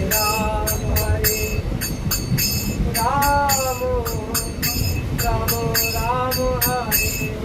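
A voice singing a devotional song in two long held phrases, accompanied by jingling metal hand percussion struck in a steady beat of about three to four strikes a second, over the low rumble of a moving local train.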